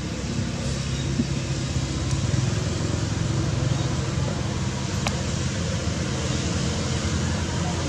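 Steady low background rumble with a faint hum, and a single faint click about five seconds in.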